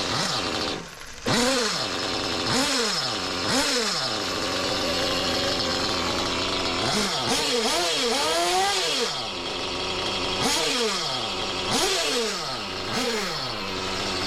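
REDS R5T nitro engine in an RC car, revving up and falling back again and again in quick pitch sweeps, with a steady hiss underneath. The hiss persists after a new clutch bell, and the owner takes it for a failing rear bearing.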